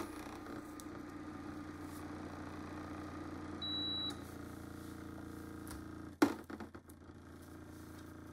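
Home-made thermoacoustic engine of stacked tin cans running with a steady low hum. A short high beep comes a little before halfway, and a sharp knock about six seconds in, after which the hum is much fainter.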